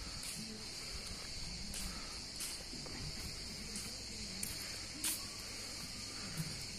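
Steady high-pitched drone of insects singing in the trees, with a few faint clicks, the clearest about five seconds in.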